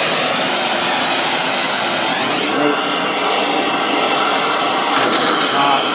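Brazing torch burning with a steady, loud hiss as it heats the thin steel can of a brake booster to braze studs into it.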